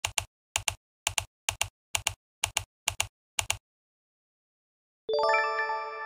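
Sound effects over a black opening screen: eight quick double clicks at about two a second, then a held synthesized chime chord starting about five seconds in.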